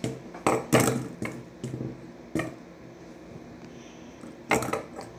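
A fidget spinner and its stacked pieces being handled and set down on a wooden table: a series of hard clacks and knocks, a quick cluster about a second in and another near the end.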